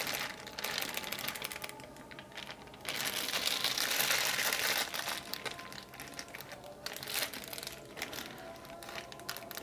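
Thin plastic bag crinkling and crackling as a hand squeezes beef stew and its thick sauce out of it, louder for a couple of seconds around the middle.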